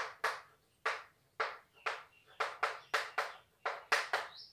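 Chalk writing on a blackboard: a quick run of sharp taps and short scratches as letters are written, about three strokes a second.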